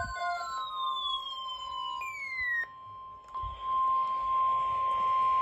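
NOAA Weather Radio's steady 1050 Hz warning alarm tone, the tone that comes before a broadcast emergency alert. Over its first couple of seconds, higher whistling tones slide slowly downward, and the alarm fades briefly about halfway before carrying on.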